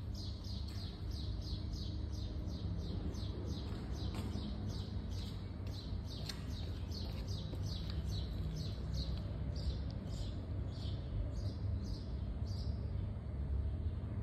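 A bird calling in a fast, even series of short high chirps, each falling in pitch, about three a second, stopping shortly before the end. A steady low hum runs underneath.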